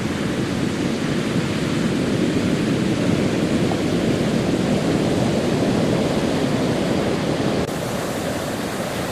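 Steady rushing noise of a heavy sea breaking on a shingle beach. Near the end it changes abruptly and drops a little in level, to turbulent water at a rocky river mouth.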